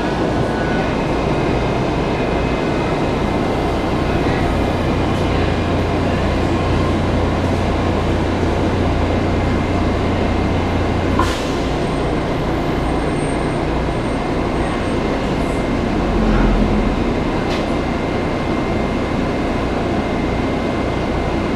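Inside a Washington Metro 3000-series railcar running through a tunnel: a steady rumble of wheels on rail. A low hum under it stops about halfway through, at the same moment as a sharp click.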